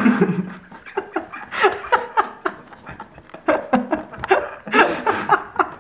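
A person laughing hard in repeated short gasping bursts, swelling again in the second half and stopping abruptly at the end.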